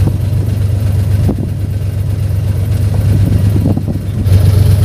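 Suzuki multicab's F6A three-cylinder engine running, heard from inside the cab as a steady low drone that gets a little louder near the end.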